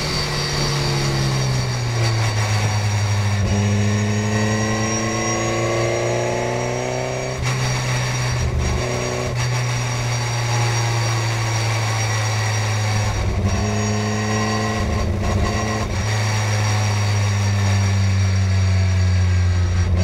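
Small-engined Morgan race car's engine heard from onboard, running under moderate throttle. Its note climbs for a few seconds and then drops about seven seconds in. A few short breaks in the note follow, as the throttle is lifted or gears change, before it steadies and edges up again near the end.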